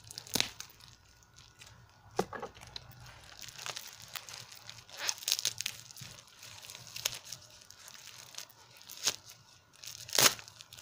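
Wrapping paper and sellotape being torn and crinkled off a wrapped squishy toy, in irregular rips and crackles. The sharpest rips come about half a second in and near the end.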